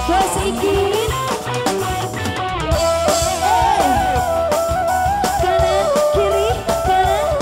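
Live band music with a woman singing through a microphone over electric guitars and drums; her voice slides and wavers in pitch through a long held melodic line.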